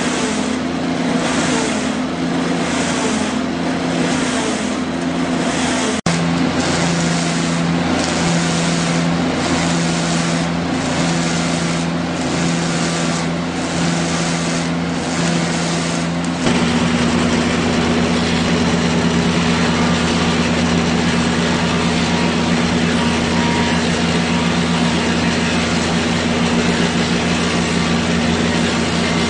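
Log lathe running, its cutter head turning a log round over a steady motor hum. The cutting noise swells and fades about once a second, then about two-thirds of the way through it changes to an even, continuous cut.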